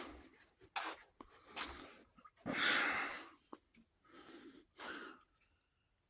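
Breathy sniffs and snorts close to the microphone: about five short bursts, the longest and loudest about two and a half seconds in.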